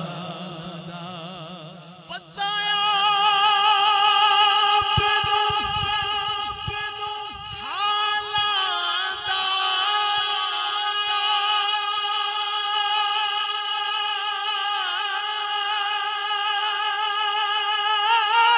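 A man singing a naat through a microphone and PA: after a short pause he holds one long, high note with a wavering vibrato, sliding in pitch partway through and then holding the new note.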